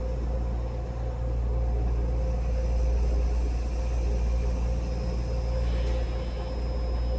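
Local passenger train running: a steady low rumble with a steady hum over it, and a faint high whine that joins about five seconds in.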